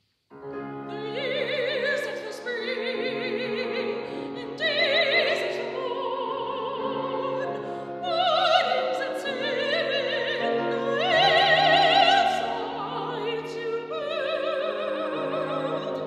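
Classical soprano singing an art song with a wide vibrato, accompanied by a grand piano. The sound begins abruptly out of silence just after the start, and the voice swells louder on held notes in the middle and near two-thirds through.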